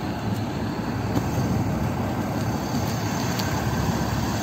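Steady low rumble of a coach bus's diesel engine idling close by, with no change through the stretch.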